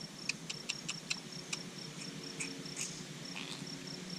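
A string of sharp metallic taps, quick at first and then spaced out over the first three seconds: a hammer knocking at a backhoe bucket pin to loosen it. Behind them a cricket chirps steadily at about five pulses a second.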